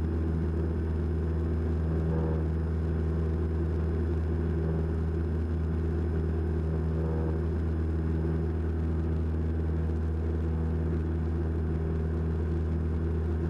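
Cessna 172 Skyhawk's piston engine and propeller droning steadily at full climb power, heard inside the cabin just after takeoff.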